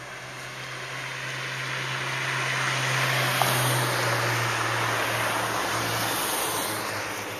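Cars passing on the road: a rush of engine and tyre noise that swells to a peak about halfway through and fades toward the end.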